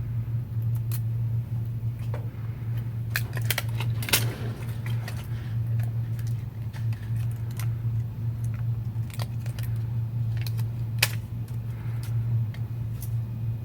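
Light, irregular clicks and taps of small phone parts and tools being handled during a smartphone reassembly, over a steady low hum.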